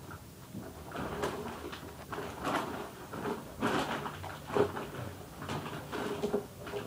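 Irregular rustling and scraping handling noise close to the phone's microphone, with a few short faint hums mixed in.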